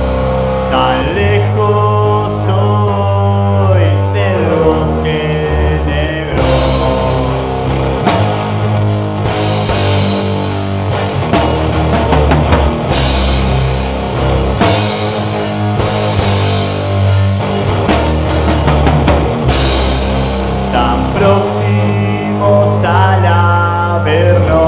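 Rock trio playing loud: drum kit, bass guitar and electric guitar, with bending, sliding melodic lines a second or so in and again near the end.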